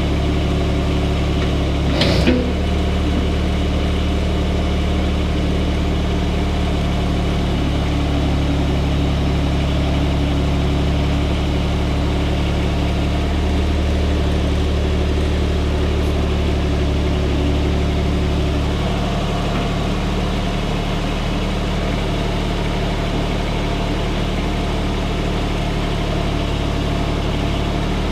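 Kubota U17-3 mini excavator's three-cylinder diesel engine idling steadily, with one brief knock about two seconds in.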